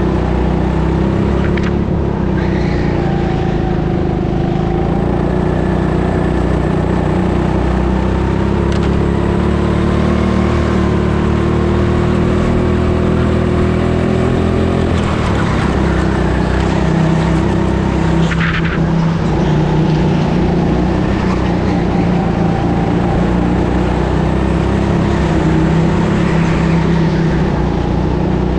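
Go-kart running at speed around the track, recorded from on board, its engine note rising and falling through the laps.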